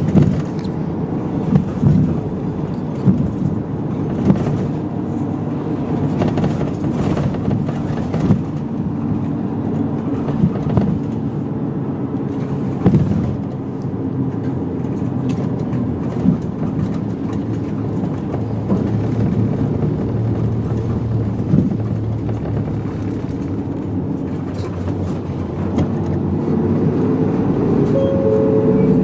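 Engine and road noise inside a moving medium-size route bus, a steady hum with occasional knocks and rattles from the body. The engine note rises near the end.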